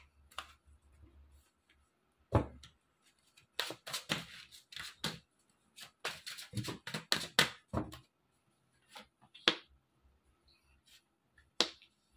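Tarot cards being handled on a cloth-covered table: a dull thump about two seconds in, two runs of quick card clicks and taps in the middle, and a couple of single sharp snaps near the end.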